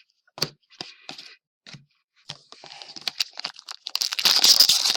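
A few light clicks of cards being handled, then the foil wrapper of a trading-card pack crinkling and tearing open. The crinkling starts about halfway through and gets much louder near the end.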